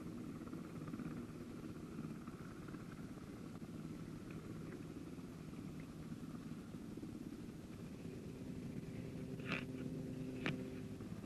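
Jet-fuel truck running steadily with a low engine hum, and two sharp clicks near the end.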